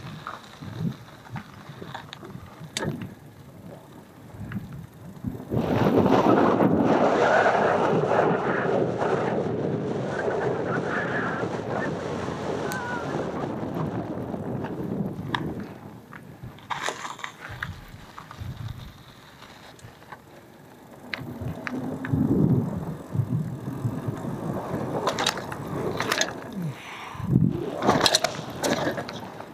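Cube Analog hardtail mountain bike ridden along a dirt trail: tyres rolling on dirt with wind on the microphone. The noise grows loud from about five seconds in for some ten seconds, then drops. Sharp clicks and rattles from the bike come near the end.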